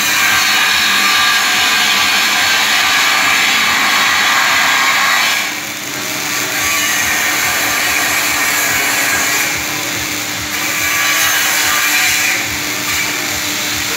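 Electric arc welding: a loud, steady hiss of the arc that eases off briefly twice, about five and a half and ten and a half seconds in, over a steady low hum.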